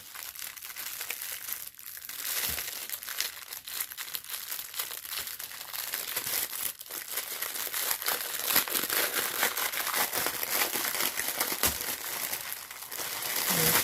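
Small plastic bags of diamond painting resin drills being handled and sorted, crinkling continuously.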